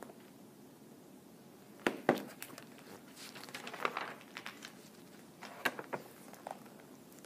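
Pages of a picture book being flipped and handled, paper rustling, with sharp snaps of the pages about two seconds in and again near six seconds.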